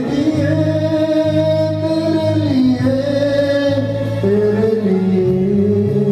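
Man singing a Hindi song live into a handheld microphone over amplified backing music, holding long notes that step to new pitches every second or two.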